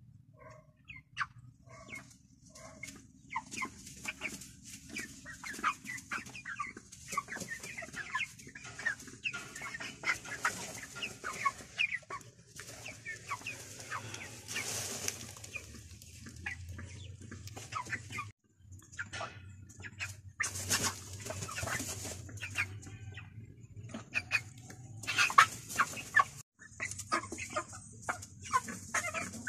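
A flock of young white broiler chickens clucking, many short calls overlapping throughout, with the sound cutting out briefly twice.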